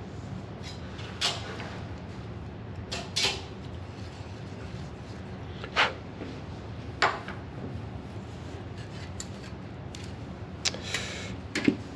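Short, scratchy pen strokes on paper, about seven quick strokes spread irregularly, with a cluster near the end, over a steady low hum.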